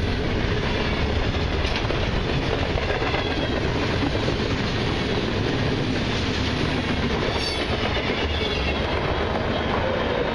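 Freight cars (covered hoppers, boxcars and tank cars) rolling past close by: a steady rumble of steel wheels on rail with a clickety-clack over the rail joints.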